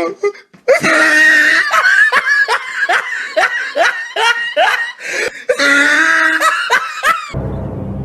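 A person laughing hard in quick bursts, about three a second, with a short break partway through. Music starts near the end.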